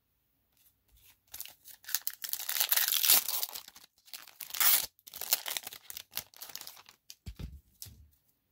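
Foil wrapper of a Magic: The Gathering collector booster pack being torn open and crinkled by hand: a crackling tear that starts about a second in and runs for several seconds, followed by a couple of soft thumps near the end.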